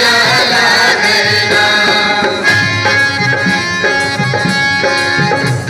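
Live Indian folk song: harmonium chords and a tabla beat accompanying a group of male singers.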